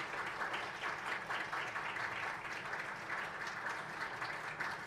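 Room of people applauding, many hands clapping steadily, at the close of a talk.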